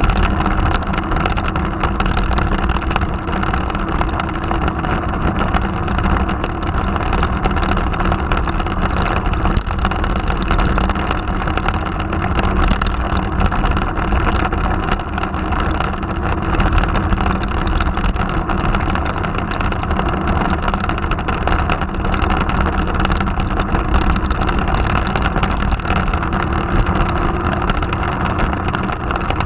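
Motorcycle engine running at a steady cruising pace, mixed with wind rushing over a camera mounted on the bike.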